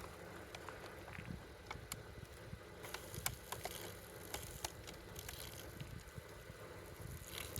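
Smoldering campfire embers being doused with water: faint scattered crackles, with a soft hiss that rises from about three seconds in.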